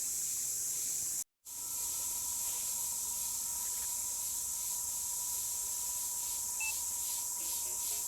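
Steady high-pitched drone of insects, cut off briefly by a gap about a second in, with a steady electronic tone running under it after the gap. Near the end short electronic beeps at shifting pitches begin.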